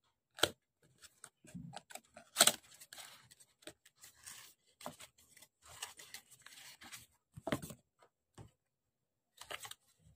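A small microphone box and its packaging being opened by hand: rustling and tearing with sharp clicks and taps, the loudest about two and a half seconds in, then a short quiet pause near the end.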